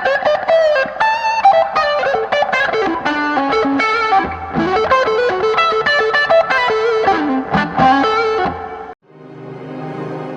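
Overdriven electric guitar playing a blues lead lick in quick single-note runs. It stops abruptly near the end, and a quieter sustained guitar tone swells in.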